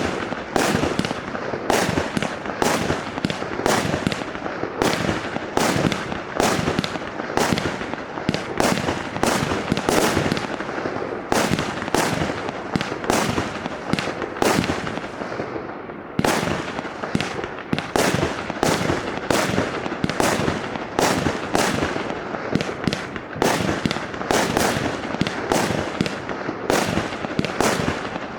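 A 100-shot, 0.8-inch compound firework cake firing: a steady run of sharp bangs, two or three a second, over a constant rushing noise.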